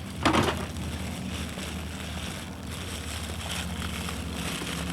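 Faint rustling and crinkling as an Easter basket's wrapping is handled and opened, over a steady low hum.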